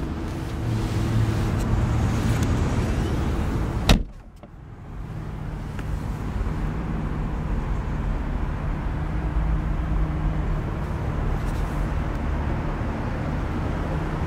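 Steady low rumble of motor vehicle noise, with a single sharp click about four seconds in, after which the sound briefly drops away and then returns.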